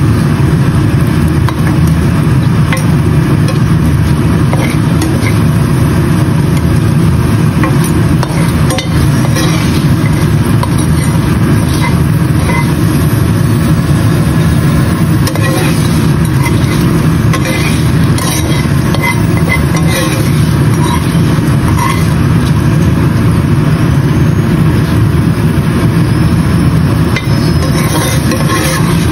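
Sweet potato pieces frying in oil in a nonstick pan, with light crackling and the occasional scrape of a spatula turning them, over a loud steady low rumble.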